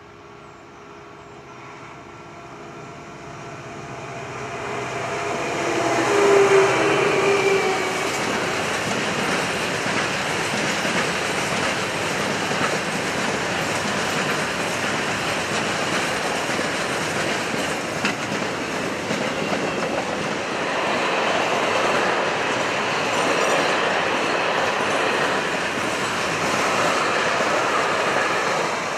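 Container freight train approaching and passing close by. The noise builds over the first six seconds, with a set of steady tones underneath, then stays as a steady din of the wagons running past on the rails.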